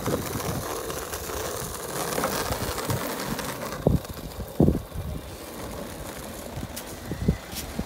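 Skateboard wheels rolling on asphalt, a steady rolling noise, with a few sharp knocks about four seconds in, again half a second later, and once more near the end.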